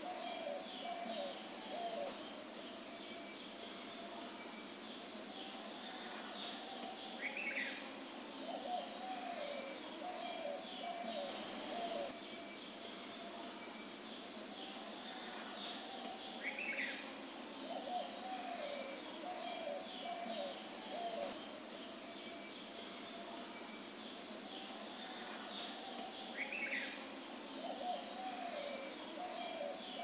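Background nature ambience of birds: short high chirps that drop in pitch, repeating every second or so, with lower warbling, cooing calls coming back every several seconds over a steady high hiss.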